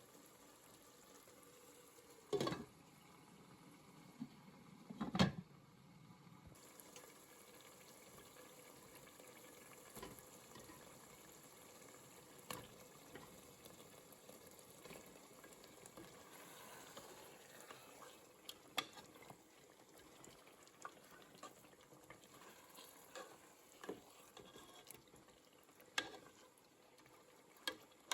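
Potato and egg curry simmering in a pot, a faint steady bubbling, with scattered light knocks and clinks; the loudest come about two and five seconds in.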